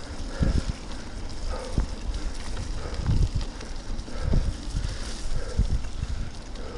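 Wind buffeting an action camera's microphone as a mountain bike rides along a wet, muddy track, in uneven low rumbles every second or so over a steady rushing noise.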